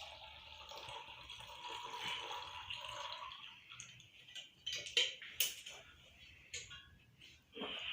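Hot herbal decoction (kadha) poured through a strainer into a cup: a steady trickle of liquid for about three seconds, then drips and a few light knocks.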